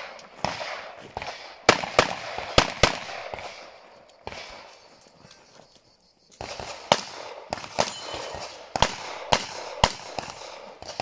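Pistol shots fired in a practical-shooting course of fire: about ten sharp reports, many in quick pairs, in two bunches with a lull of about two seconds between them.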